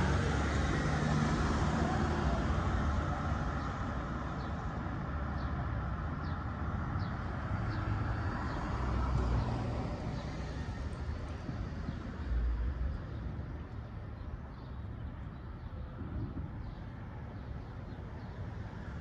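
A car passing close by through a street intersection, its engine and tyre noise loudest at first and fading away over the first several seconds, leaving a lower hum of street traffic.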